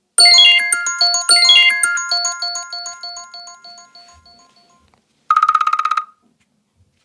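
iPhone ringtone: a bright chiming arpeggio played twice, its notes echoing and fading away over about four seconds. About five seconds in comes a short, fast-pulsing tone lasting under a second.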